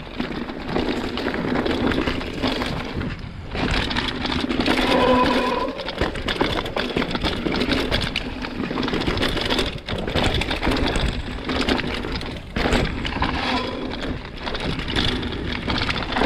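Hardtail mountain bike ridden over a rough, choppy trail: constant irregular rattling and knocking from the bike and its tyres on the dirt, over a low rumble. A brief steady tone sounds about five seconds in.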